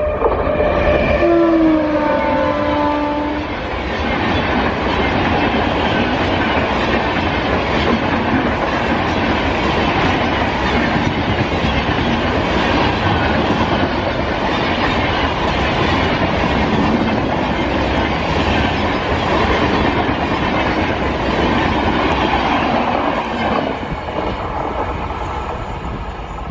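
Indian Railways WAP-7 electric locomotive sounding its horn for about three seconds, then the train running past with a steady rush and the clatter of wheels over rail joints, easing off near the end.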